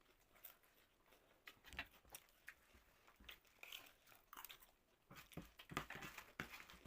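Faint, close-up crunching and chewing of jhal muri (spiced puffed rice): a string of short crunches that grows busier in the last couple of seconds.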